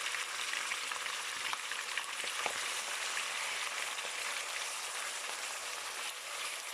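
Sliced chicken thigh pieces sizzling and crackling in hot oil in a pan, in a steady hiss with small pops.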